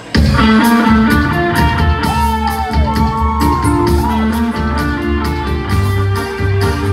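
Band music starting suddenly: the instrumental intro of a slow Vietnamese ballad, with a lead guitar line bending in pitch over held chords, bass and drums.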